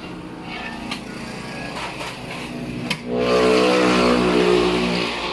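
Car engine running, then revving up about three seconds in and holding at the higher speed, with a couple of sharp clicks before the rev.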